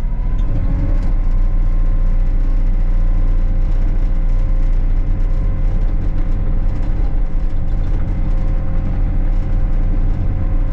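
Excavator's diesel engine running at a steady speed, loud and even throughout.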